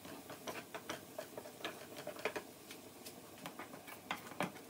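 Faint, irregular small clicks and taps, several a second, from kitchen work at the stove.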